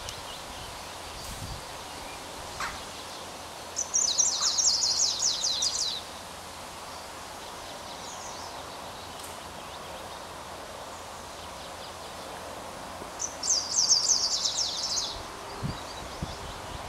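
Icterine warbler singing: two fast phrases of high, rapidly repeated notes, each about two seconds long, one about four seconds in and one near the end, over steady background noise.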